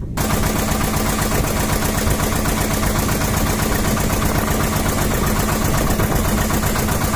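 Boat engine running steadily at close range, with a fast even chugging.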